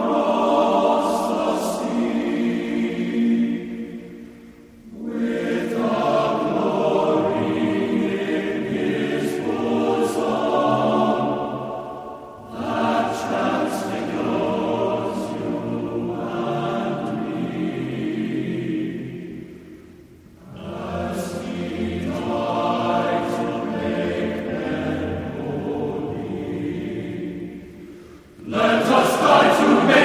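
Background music of a choir singing, in long phrases of about eight seconds with brief pauses between them.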